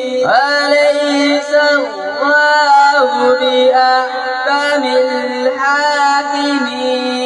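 A boy reciting the Quran in Arabic in a long, melodic chant through a microphone and loudspeakers, the pitch sliding and held through drawn-out phrases with a short break about two seconds in. A steady hum runs underneath.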